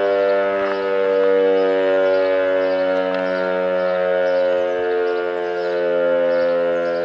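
Civil-defense warning siren sounding a steady, unbroken tone made of several pitches at once, wavering slightly and slowly, as for an emergency alert.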